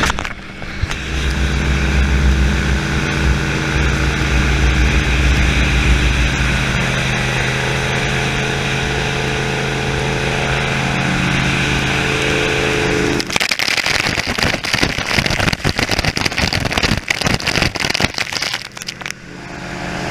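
Turbo V8 boat engine running hard at speed with a steady note, the hull rushing through the water. Around two-thirds of the way through the pitch rises a little, then the engine is suddenly swamped by loud, crackling buffeting, which eases near the end.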